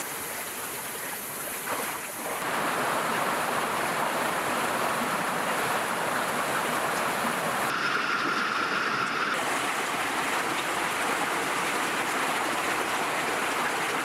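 Creek water flowing, a steady rushing sound.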